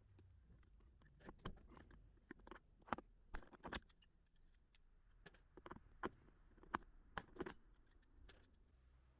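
Faint, irregular clicks and knocks of blind rivets being set in an aluminium RV awning rail, a few sharper snaps among them, with a faint steady high tone that stops near the end.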